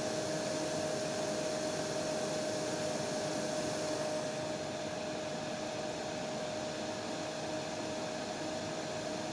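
Hair dryer running steadily: a constant rushing blow with a steady whine from the motor. About four and a half seconds in, the high hiss drops slightly and the sound gets a little softer.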